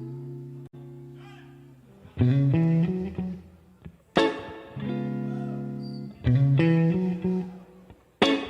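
Guitar playing slow chords, one struck about every two seconds and left to ring, dying away before the next.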